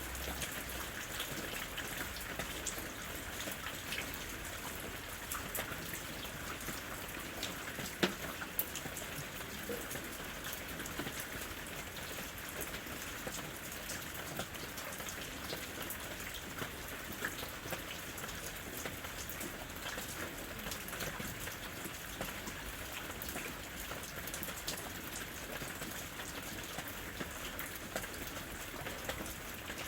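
Steady rain falling in a forest, a constant hiss with many individual drops pattering close by and one sharper drop hit about eight seconds in.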